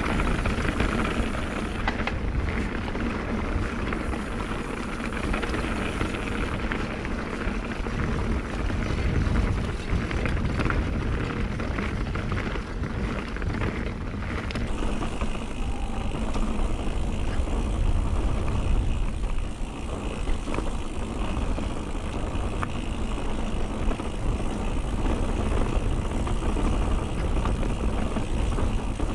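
A mountain bike rolling fast down a dry dirt forest trail: a steady rush of wind on the helmet or handlebar camera's microphone over tyres rumbling and crackling on dirt and loose stones. The sound changes character abruptly about halfway through.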